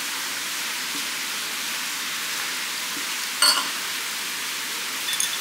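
Steady even hiss of room noise, with a single sharp clink of tableware about three and a half seconds in.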